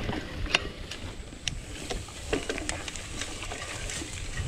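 Polygon Bend R2 gravel bike riding through tall grass and brush: scattered clicks and rattles from the bike and vegetation brushing against it, over a steady low rumble.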